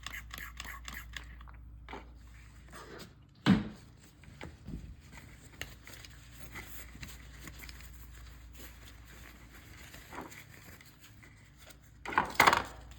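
Hand tools and metal oil-burner parts being handled. A quick run of scratchy clicks comes first, then a sharp knock about three and a half seconds in, scattered small clicks, and a metal clatter near the end.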